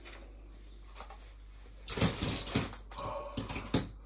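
Thick gunge poured over a man's head, starting about two seconds in: a run of wet splats and slaps as it lands on him and drops onto the tiles.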